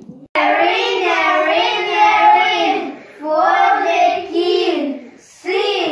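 A small group of children chanting the English tongue twister "A ring, a ring, a ring for the king, sing, sing, sing to the king" together in a drawn-out, sing-song voice. It starts abruptly a moment in and goes in three long phrases.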